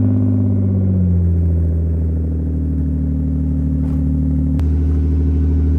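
BMW E36 Compact's M52B28 straight-six, fitted with an M50 intake manifold, idling just after starting up after sitting for a long time. The revs ease down over about the first second and then hold a steady idle.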